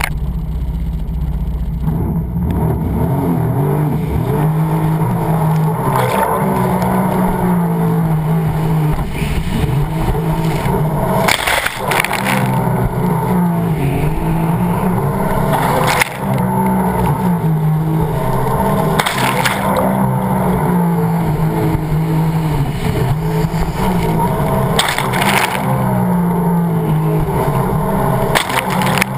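Sea-Doo personal watercraft's engine running hard, its pitch rising and falling as the rider works the throttle, with sharp splashes of water against the hull and camera every few seconds.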